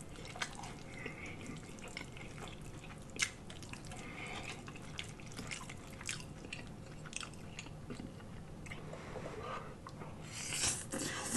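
Eating sounds: soft chewing, with small scattered clicks of a metal fork in a glass baking dish of spaghetti. Near the end comes a louder slurp as a forkful of spaghetti goes into the mouth.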